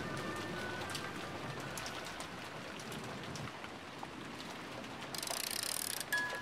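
Steady rain-like hiss with scattered light ticks. About five seconds in, a brighter, higher hiss comes in for about a second.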